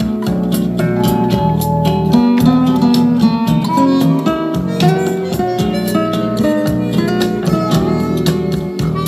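Acoustic guitar music, many quickly plucked notes over a steady bass, played through a pair of Bose for NEC S-101VM speakers.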